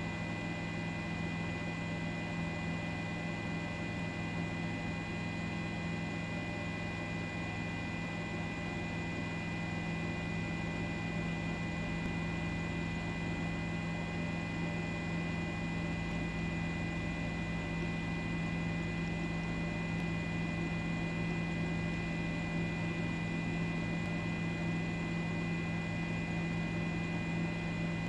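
A steady, unchanging hum made up of several fixed tones, the deepest one strongest, over a light hiss, with no other sounds standing out.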